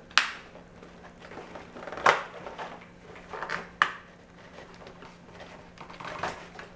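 Hands handling the cardboard-and-plastic packaging of a Speed Stacks timer and mat: sharp knocks and scrapes, the loudest right at the start and again about two and four seconds in, with a few softer ones near the end.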